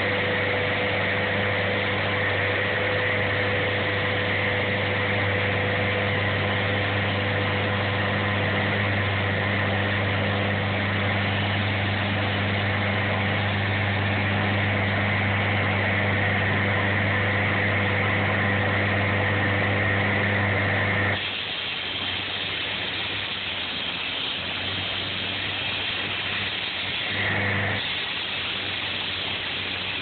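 Engine of a track-driven concrete saw running steadily under power. About two-thirds of the way through it suddenly drops to a lower, quieter running note, with a brief rise a few seconds later.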